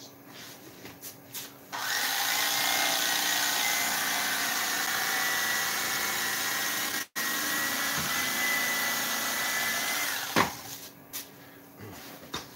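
Corded electric knife running as it cuts through foam seat padding: a steady whir with a thin high whine. It starts about two seconds in, breaks for an instant near the middle, and stops a couple of seconds before the end.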